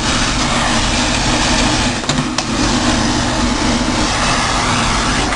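Miele vacuum cleaner running steadily under suction, sucking up loose debris from the floor, with two faint brief ticks about two seconds in.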